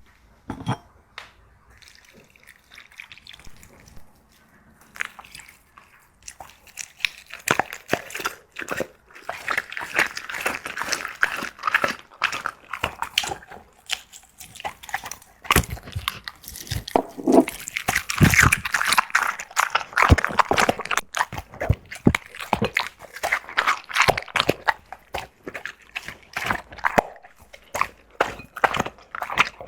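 Black Labrador chewing and gnawing on chew bones: rapid wet mouth-smacking and teeth clicking. It is sparse and quiet for the first several seconds, then dense and louder from about seven seconds in.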